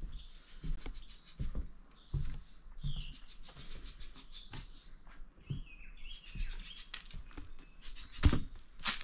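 Footsteps walking through overgrown ground, about one step every three quarters of a second, with a few short bird chirps over them. From about two-thirds of the way in, vegetation rustles and brushes as he pushes through, with one louder crunch near the end.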